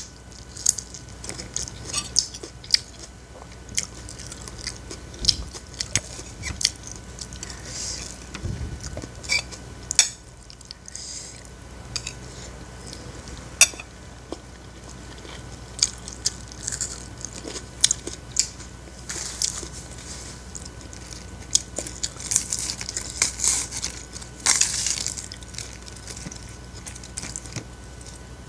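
Close-up eating sounds: crisp bites and wet chewing of raw bird's eye chilies and raw napa cabbage leaves, with sharp mouth clicks and bursts of crunching scattered throughout.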